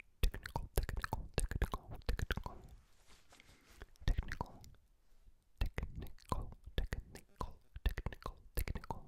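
Close-miked whispering and wet mouth sounds: quick clusters of lip smacks and tongue clicks right at the microphone, broken by a couple of short pauses.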